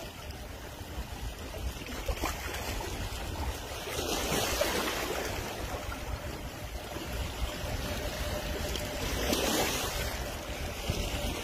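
Sea waves washing onto a pebble shore, swelling twice about five seconds apart, over a steady rumble of wind on the microphone.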